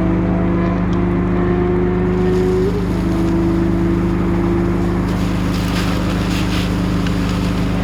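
An engine idling steadily with a constant low hum, and some hiss near the end.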